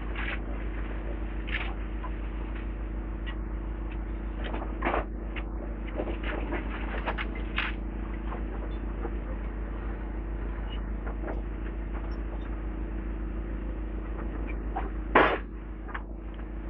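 Demolition excavator's engine running steadily, with scattered knocks and clatter of falling rubble, and one loud crash near the end.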